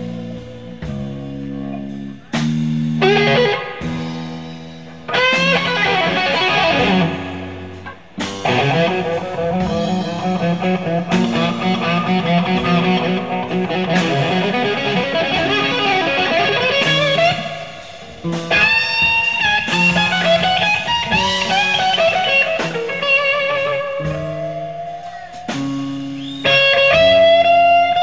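Live blues-rock power trio: an electric guitar plays lead lines with string bends and vibrato over electric bass and drums. Near the end a long held guitar note slides upward.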